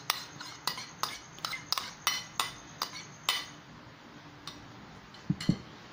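A metal spoon clinking and scraping against a bowl as plain yogurt is spooned out into a blender jug: quick clinks about three a second, thinning to a few scattered ones after about three seconds.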